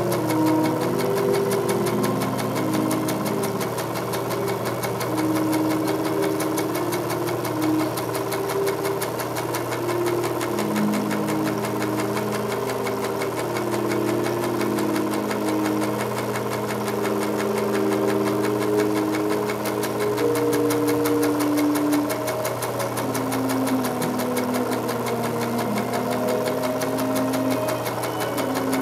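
Experimental film soundtrack: sustained tones that step to a new pitch every second or two, over a steady low hum and a fast, even mechanical rattle.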